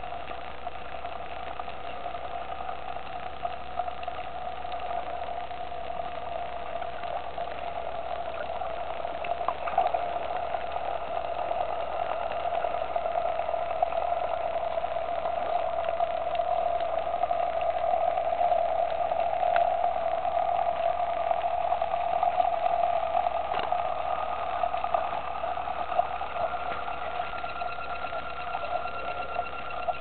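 Steady mechanical hum recorded underwater, a little louder in the middle, with a few faint clicks scattered through it.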